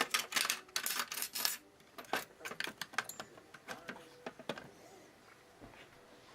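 Metal tweezers handling small pin-tumbler lock pins and parts, a quick run of light metallic clicks and taps that thins out into scattered ticks after about two seconds.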